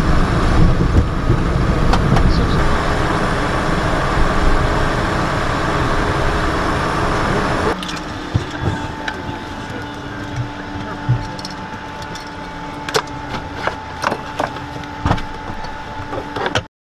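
Cessna Citation XLS rolling along the runway, heard from the cockpit as a loud, dense rushing noise. About eight seconds in it cuts to a much quieter steady hum with two faint tones and scattered clicks and knocks as the jet sits on the ramp.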